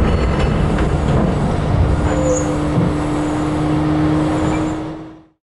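Hydraulic excavator working a steel shear, its engine running steadily with a constant hum and a few light knocks. The sound fades out near the end.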